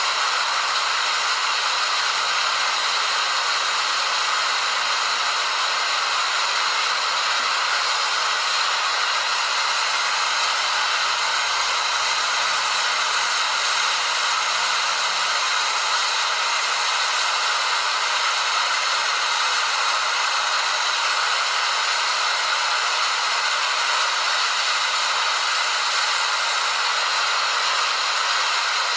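Waterfall: a steady, even rush of falling water, mostly high and hissing, with little deep rumble.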